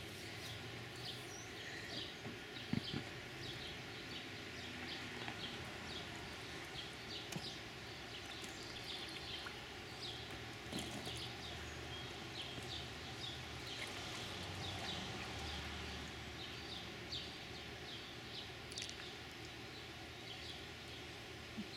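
Quiet outdoor yard ambience: a steady faint background with many short high chirps scattered throughout, and a few soft knocks.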